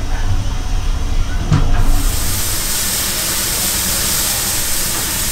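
Low rumble of a train with a single knock, then, about two seconds in, a steam locomotive starts venting steam in a loud, steady hiss.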